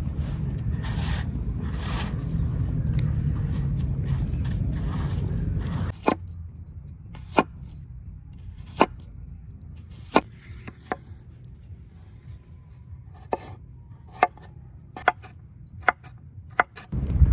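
A steady low rumble for about six seconds, then it cuts off and a series of sharp single knocks follows, roughly one every second or so, from cooking work.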